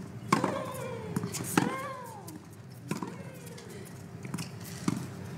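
A tennis rally on a hard court: the ball is struck by rackets and bounces several times, a sharp pop every second or so, with a short falling grunt from a player on some of the shots.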